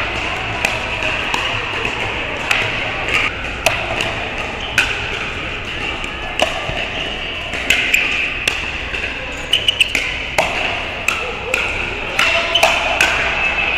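Pickleball paddles striking a plastic pickleball during a rally: sharp pops at irregular intervals, with a quick run of four hits in fast succession near ten seconds in. Background voices fill the large hall.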